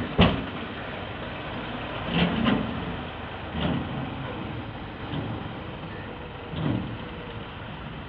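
Massey Ferguson diesel tractor running as it pulls an emptied tipping trolley away over rough, loose ground. There is a sharp knock just after the start and a few duller thumps later, from the raised trolley bumping along.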